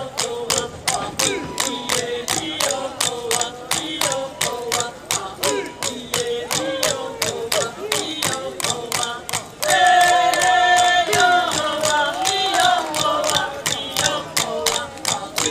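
Chanted singing over a steady, quick percussion beat. Just under ten seconds in, louder voices come in holding long notes.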